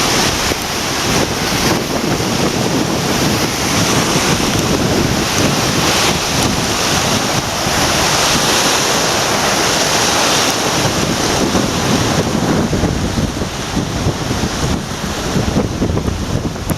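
Typhoon wind gusting and buffeting the microphone over the steady rush of the storm-swollen Kumano River's water.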